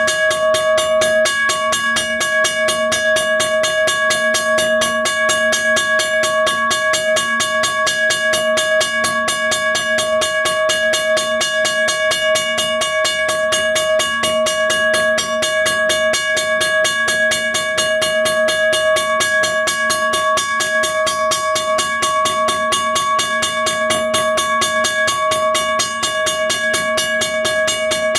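1982 first-generation Western Cullen Hayes mechanical railroad crossing bell ringing loud and steadily, its motor-driven hammer striking the gong in a rapid, even rhythm under a sustained ringing tone.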